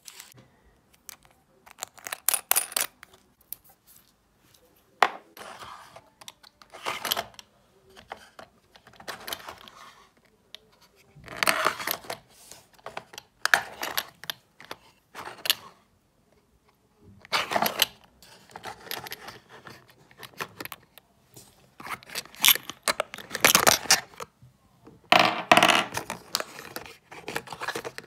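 Resin diamond-painting drills poured from a small plastic bag into a glass jar, and glass jars with aluminium screw caps handled and set into clear plastic storage drawers: repeated bursts of small hard clattering, rattling and plastic rustling, with the loudest clatter late on.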